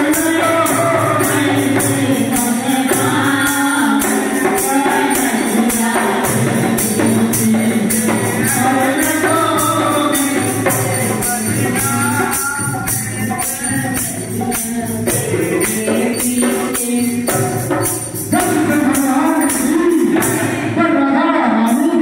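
A devotional Hindi bhajan sung by a man's voice through a microphone, accompanied by dholak drumming and jingling hand percussion keeping a fast, even beat. The jingling drops away near the end.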